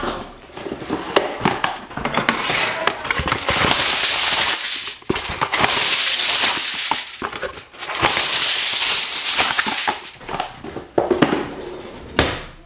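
Crinkling, rustling handling noise in three long stretches, with sharp clicks and knocks between them, from food preparation in a kitchen.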